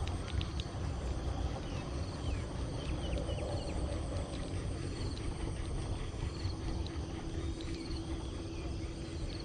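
Open-air ambience beside a plantation ditch: a steady low rumble with many faint, short high chirps over it. A faint steady hum comes in about six seconds in.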